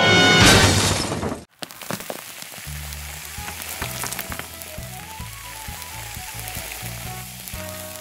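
Loud music breaks off about a second and a half in. Then a steady sizzling, crackling hiss plays under quiet background music with a soft melody and bass line.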